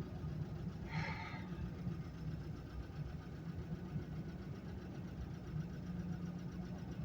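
A car engine running steadily, a low even hum, with a brief higher rustle-like sound about a second in.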